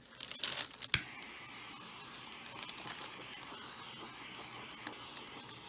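Handheld butane torch being lit: a short hiss of gas and a sharp ignition click about a second in, then the flame's steady hiss.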